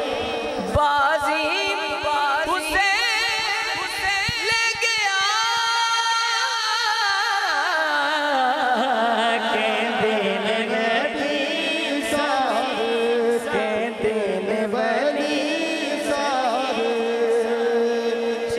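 Solo male voice singing a Punjabi Islamic devotional poem (naat/qasida style) into a handheld microphone through a sound system, in long, quavering, ornamented runs that climb and fall in pitch. A long note is held near the end.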